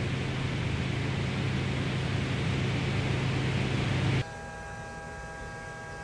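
347 stroker small-block Ford V8 running steadily on an engine dyno. It cuts off abruptly about four seconds in, leaving a low, steady electrical hum.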